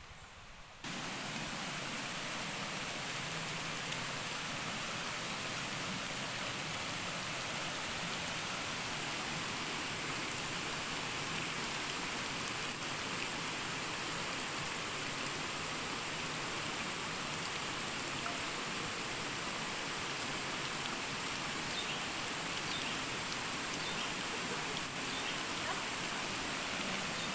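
Steady hiss of water, starting abruptly about a second in.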